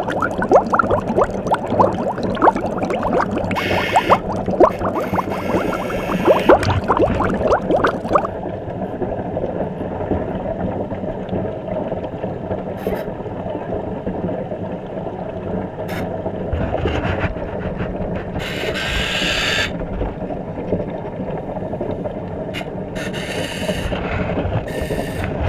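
Small toy RC submarine's electric propeller motor humming steadily, heard underwater through a GoPro housing. Bubbly crackling runs over the first eight seconds, and short bursts of hissing water noise come several times later.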